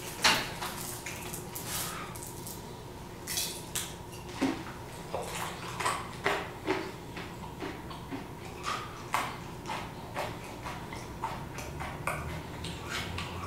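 Irregular light clicks and clinks of small hard objects being handled and set down, the sharpest one right at the start.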